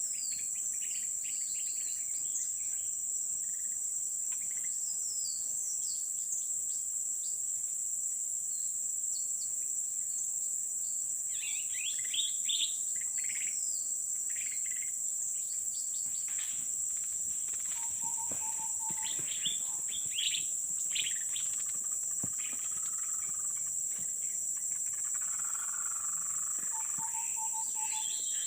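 Steady high-pitched drone of insects, with many short bird chirps and calls over it, busier in the second half and including two brief steady whistles near the end.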